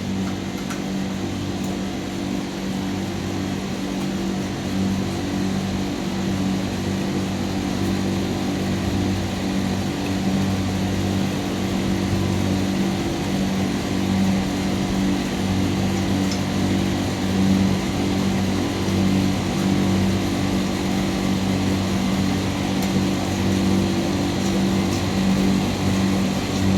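A machine running steadily with a low electrical hum and a constant mechanical drone, unchanged throughout.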